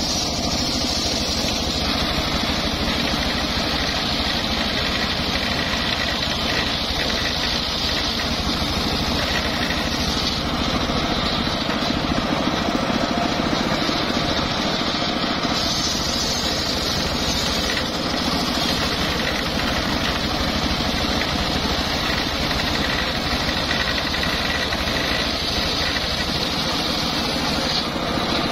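Homemade engine-driven circular saw bench running steadily, its large blade ripping lengthwise through a teak log, with a constant high whine over the engine's rumble.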